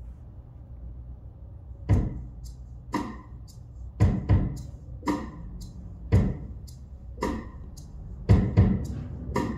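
Slow drum intro to a recorded blues song played over a KT66 valve-amplifier hi-fi system: kick and snare hits about a second apart, a few with quick extra strokes, over a steady low hum.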